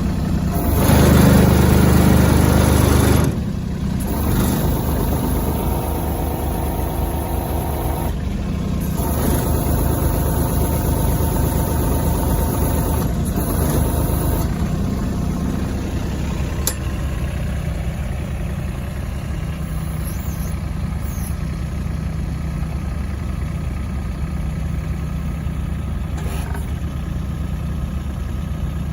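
Kubota U-20-3S mini excavator's diesel engine running, louder for the first few seconds, then settling into a steady run.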